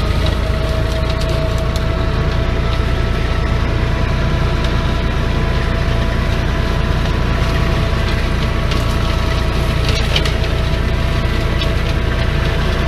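Tractor-mounted hammer-flail mulcher running under load and shredding grass and brush, over the steady low rumble of the tractor engine, with a constant mid-pitched hum and scattered sharp clicks and cracks of material being broken up.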